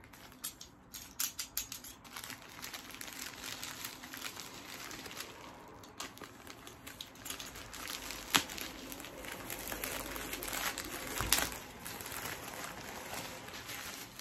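A padded plastic mailer crinkling and rustling as it is handled and opened and the boxed album is slid out, with two sharper, louder crackles in the second half.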